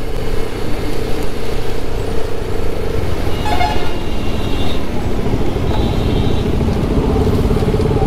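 Motorcycle engine running steadily on the move, with a vehicle horn honking once for about a second and a half, roughly three and a half seconds in, and a shorter high toot about two seconds later.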